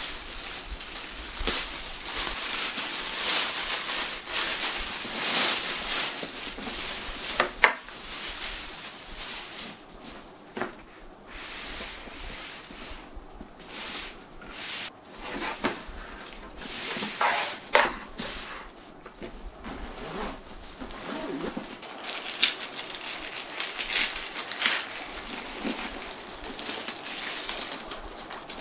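Plastic bag rustling and crinkling as a canvas messenger bag is pulled out of it and unwrapped, with scattered sharp clicks and knocks from handling the bag.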